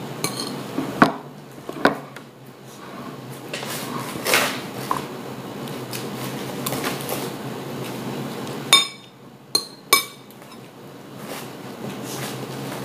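Dishes and cutlery clinking and knocking on a wooden table, with scattered sharp knocks and a cluster of three about nine seconds in.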